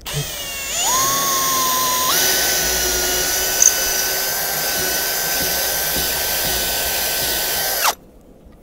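Milwaukee cordless drill boring a hole into a wooden post. Its motor whine rises as it spins up, steps up in pitch about two seconds in, holds steady, then cuts off suddenly near the end.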